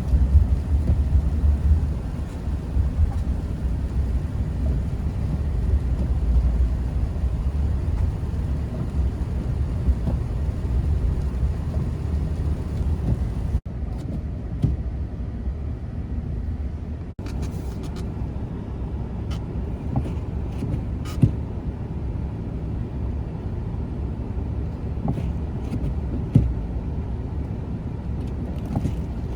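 Car driving, with a steady low road-and-engine rumble and a few light clicks.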